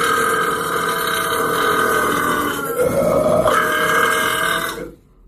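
A person belching one very long, drawn-out burp that wavers in pitch about three seconds in and breaks off suddenly near the end. After a brief gap, another burp starts right at the close.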